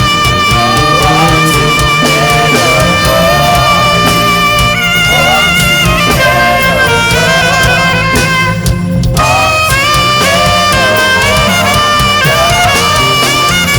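Saxophone playing a gospel worship melody over sustained band accompaniment, with the upper part dropping out briefly about eight seconds in.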